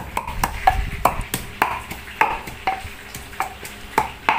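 Pestle pounding garlic and red chili in a wooden mortar: a steady run of sharp knocks, about three to four a second, as the garlic and chili are mashed fine for a fish-sauce dipping sauce.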